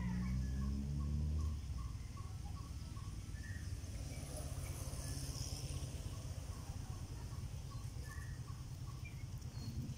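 Outdoor ambience: a small bird or insect repeats a short note about three times a second, fading out after the first few seconds, with a few higher chirps later. A steady low rumble runs underneath, louder for the first second and a half.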